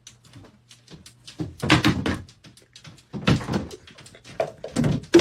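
Repeated knocks and bumps, in three louder clusters, over a steady low hum.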